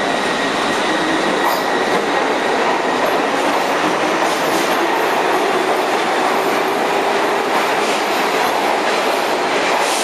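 R62A subway train pulling out of the station and passing close by, its wheels running and clattering over the rails in a loud, steady noise. A thin high tone fades out about two seconds in.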